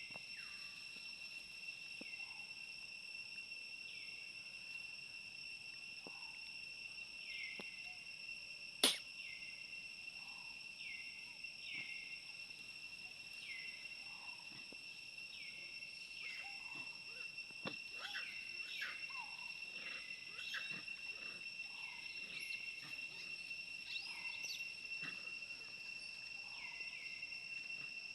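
Steady high-pitched drone of crickets or other insects, with many short falling chirps scattered through it, growing busier in the second half, and one sharp click about nine seconds in.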